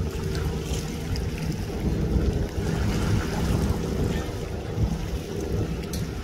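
Outboard motor on a pontoon boat idling as the boat moves slowly off the dock. The low rumble is steady, with wind buffeting the microphone.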